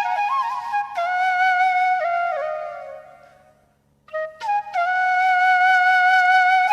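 Background music: a solo flute playing a slow melody of long held notes with small ornaments. The phrase fades out about three seconds in, and after a brief silence a new phrase begins.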